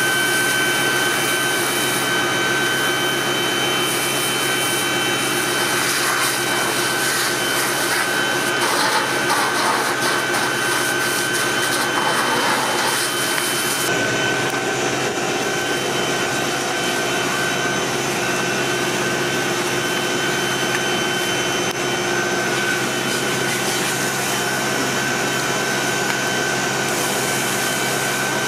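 Fire engine's pump and motor running steadily under load to supply the hoses, a constant drone with a high whine. A hiss of water spraying from a hose nozzle runs over the first half, then drops away.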